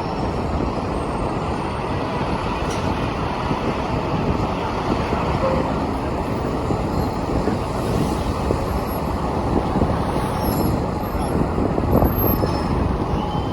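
Steady city street traffic noise heard from a moving bicycle: a continuous rumble of vehicles and road noise with no single event standing out.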